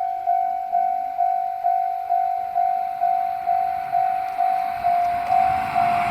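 Japanese railway level-crossing warning bell ringing its steady 'kan-kan' alarm, one clear tone struck about twice a second, each strike fading before the next. A rush of noise builds near the end.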